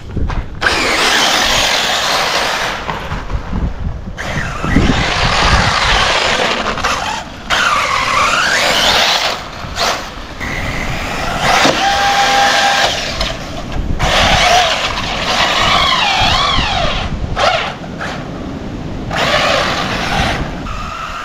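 Arrma Typhon 6S brushless RC buggy driven hard in repeated bursts of throttle: a high motor whine rising and falling, over the rush of its tires tearing across frozen dirt and grass, with brief drops as the throttle is let off.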